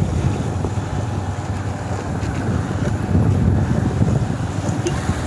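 Wind rushing over the microphone of a moving motorcycle, with the bike's engine and road noise running beneath. The rush swells louder about three seconds in.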